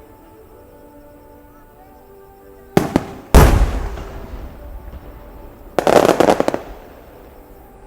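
Aerial fireworks shells bursting. A sharp bang comes about three seconds in, then a louder boom that dies away over a second or two. Near the six-second mark there is a dense volley of rapid crackling reports. Faint music plays under the quiet first seconds.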